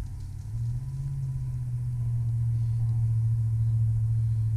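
A motor vehicle engine running with a steady low hum that grows louder over the first couple of seconds, then holds.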